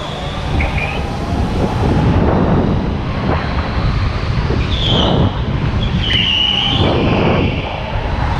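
Onboard sound of a rental go-kart driven hard through corners: a steady rumble and road noise from the kart, with a few brief tyre squeals, the clearest about five and six seconds in.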